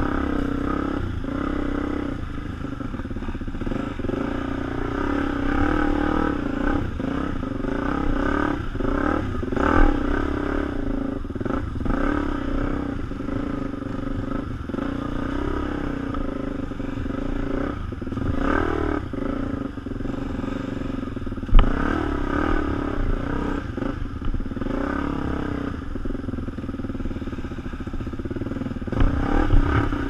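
Off-road motorcycle engine running at a fairly steady speed while riding a rough trail, with scattered knocks and clatter; the sharpest knocks come about a third of the way in and just past two-thirds.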